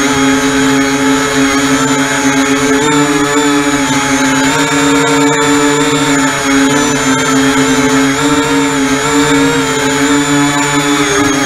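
Electric motors and propellers of an E-flite Convergence VTOL model aircraft running, heard close up from on board: a steady, loud buzzing whine that wavers slightly in pitch as the throttle shifts.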